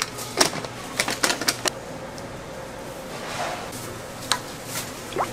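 Kitchen clatter: a run of sharp, irregular clicks and knocks as utensils and containers are handled, bunched in the first two seconds and again near the end, over a faint steady hum.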